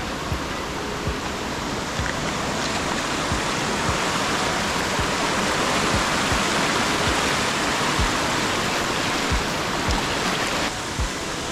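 Rushing water: a steady hiss that grows louder through the middle and drops off suddenly near the end. Soft low thumps come about once a second throughout.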